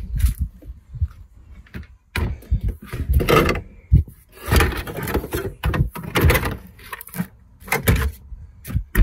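Plastic engine cover of a Mercedes OM642 V6 diesel being handled, lowered onto the engine and pushed down into place: a string of irregular hollow plastic knocks, clunks and scrapes.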